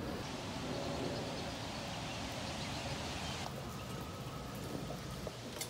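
Steady rain falling, an even hiss. The higher part of the hiss drops away suddenly about halfway through.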